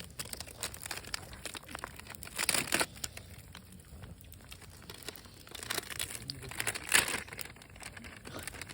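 Plastic snack wrapper crinkling and tearing as a packet is opened, in irregular bursts, loudest about seven seconds in.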